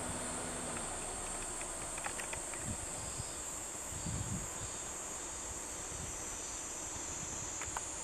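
Insects droning steadily in a single high-pitched band that dips slightly in pitch near the end, over an even background hiss, with a few soft low thumps about halfway through.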